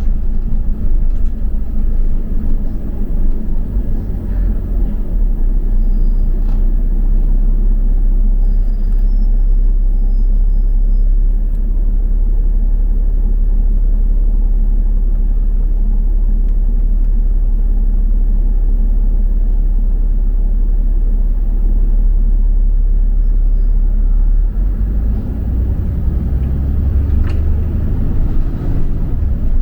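Double-decker bus's engine and road rumble heard from inside the bus as it drives, a steady low drone. About 25 seconds in, the engine note changes and rises.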